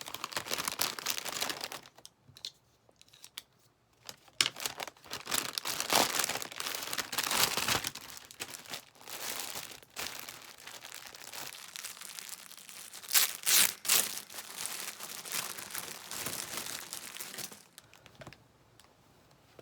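Crinkling and rustling of something being handled, in irregular bursts with short pauses, loudest about two thirds of the way through.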